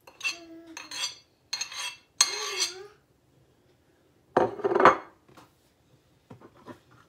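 A kitchen utensil clinking and scraping against a plastic bowl, in irregular bursts, with one louder clatter about halfway through and a few light taps near the end.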